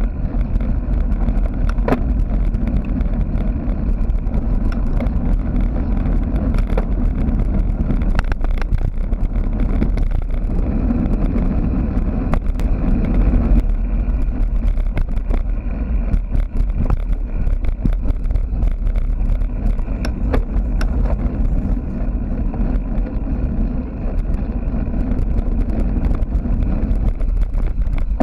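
Mountain bike ridden over rough ground, picked up by a GoPro action camera's microphone: a steady loud wind rumble on the mic, with frequent sharp clicks and rattles from the bike.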